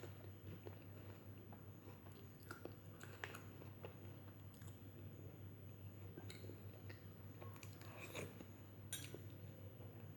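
Close-miked chewing and mouth sounds of someone eating, a string of soft, wet clicks and smacks at an uneven pace. The clicks are a little sharper about three seconds in and again near the end. A steady low hum sits underneath.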